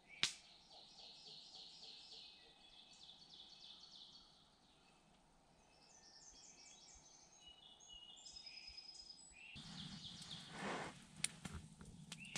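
Faint songbirds of a dawn chorus in woodland, singing repeated chirped trills and short phrases that die away about two-thirds of the way through. Near the end there is a soft rustle and a few clicks.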